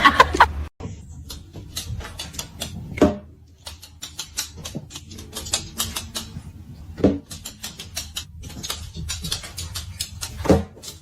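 Irregular light tapping and clicking, with louder knocks about three, seven and ten and a half seconds in.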